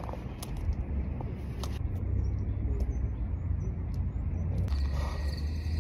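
Steady low outdoor rumble, with a few scattered light clicks and faint short high chirps; a thin hiss joins near the end.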